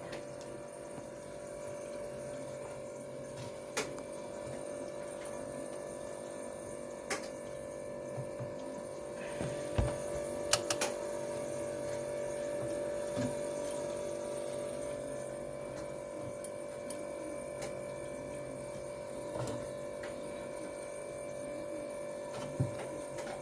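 A steady mechanical hum, with a few sharp clicks and knocks.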